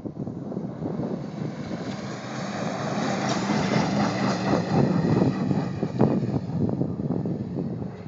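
Lifted pickup truck engine running hard as the truck speeds past on sand, getting louder as it approaches, peaking as it passes, then fading as it pulls away.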